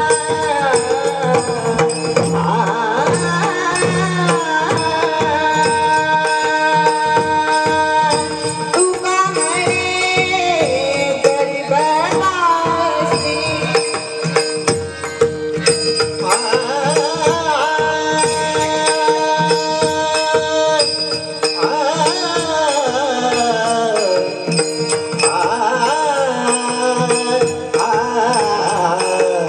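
A devotional Marathi bhajan: a girl's voice singing wavering, ornamented phrases that glide up and down over a steady held drone, with drum beats underneath.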